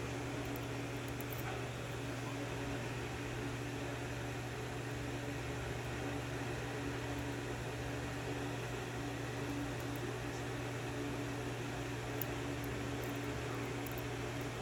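Steady low machine hum, like a fan or air conditioner running in a small room, with a few faint small clicks near the end.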